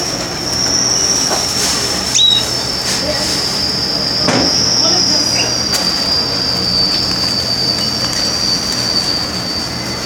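Domestic canary singing one long, high trill at a near-steady pitch that sinks slightly, with a few soft clicks and a short rising chirp about two seconds in.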